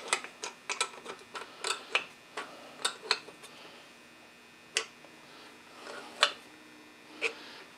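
Light metallic clicks of hand tools on metal, several a second for the first three seconds or so, then a few single clicks. A ratchet is snugging up the carburetor's mounting nuts, and metal parts are being handled.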